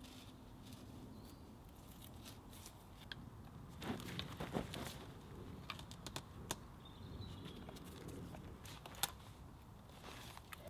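Cord being pulled tight and knotted around wooden posts: quiet rustling with scattered sharp clicks and creaks, busiest about four to five seconds in.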